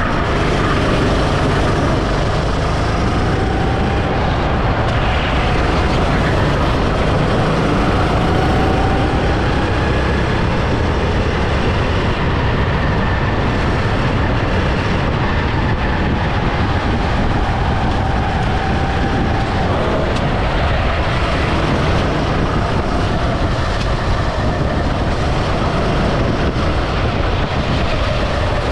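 Go-kart engine running at race speed, heard from a camera mounted on the kart, its pitch drifting up and down through the corners under a constant rush of noise.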